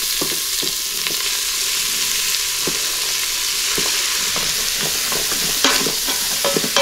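Diced onion, celery and carrot sizzling in hot butter in an Instant Pot's steel inner pot on sauté mode: a steady hiss with scattered soft clicks as the pieces drop in. Near the end a wooden spoon stirs them, knocking and scraping against the pot.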